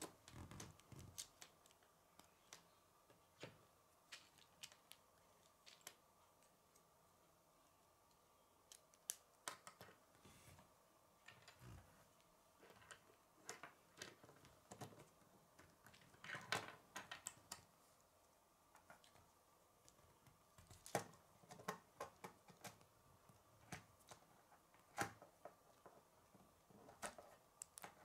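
K'nex plastic rods and connectors clicking and snapping together as they are handled and fitted, in scattered sharp clicks at irregular intervals with short quiet stretches between.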